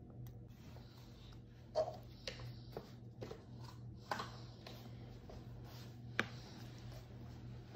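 Toddler's plastic spoon scraping and tapping in a plastic bowl while scooping rice: several light clicks, the sharpest about two seconds and six seconds in, over a faint steady low hum.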